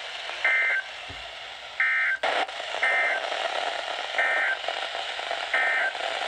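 Emergency Alert System SAME data bursts received over the air: six short two-tone digital chirps, about one every 1.3 seconds, over steady radio hiss, with a sharp click a little over two seconds in. Short bursts like these right after an alert's spoken text are the end-of-message codes that close the alert.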